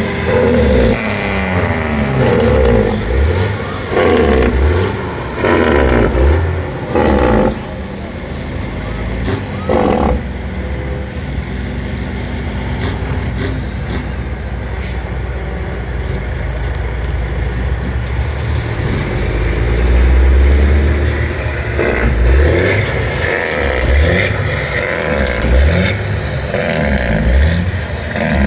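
Big rig trucks driving past one after another, their engines running, with one passing louder and closer about two-thirds of the way through.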